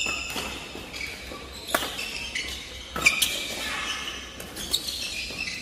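Badminton rally: rackets striking the shuttlecock with sharp cracks several times, about a second and a half apart, mixed with sneakers squeaking on a wooden court, echoing in a large hall.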